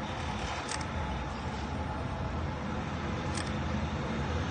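Steady jet-engine noise from a Nepal Airlines Airbus A330 rolling along the runway just after landing.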